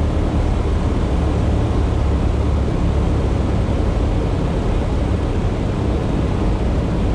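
Bellanca Super Decathlon's four-cylinder Lycoming engine and two-blade propeller running steadily in cruise flight, a constant low drone with rushing airflow.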